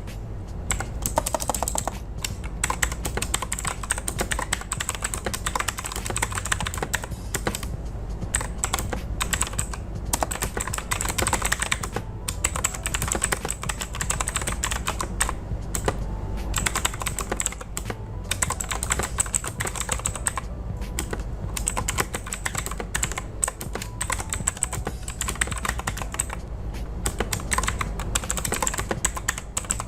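Continuous fast typing on a mechanical keyboard with Blue (clicky) switches: a dense, irregular run of sharp key clicks, with a few brief pauses.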